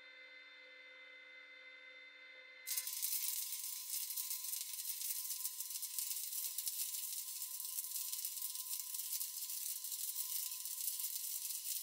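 Stick-welding (SMAW) arc striking about three seconds in, then burning with a steady crackling sizzle as the electrode is run. Before the strike there is only a faint steady hum of a few tones.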